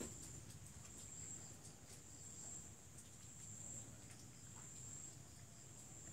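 Faint, steady high-pitched insect trilling with a low hum under it; otherwise near silence.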